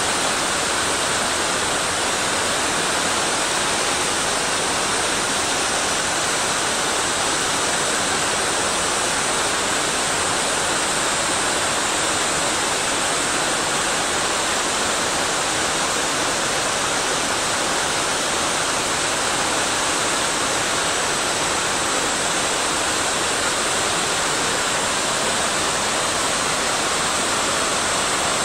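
Fast-flowing mountain stream water rushing steadily, without a break.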